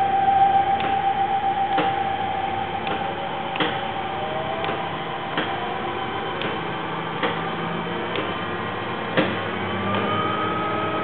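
Hardinge HLVH-T toolroom lathe's spindle and variable-speed drive running while the speed is turned up. The running tone climbs in pitch, most plainly near the end, with a short sharp click about once a second.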